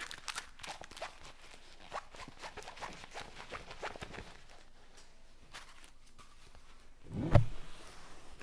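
Rustling and crinkling of a diamond painting kit's canvas and packaging being handled, with one loud thump a little after seven seconds as the canvas is brought up to the camera.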